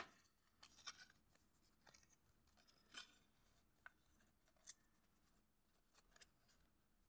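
Near silence, broken by faint, scattered ticks and rustles of a small printed card booklet being handled and opened.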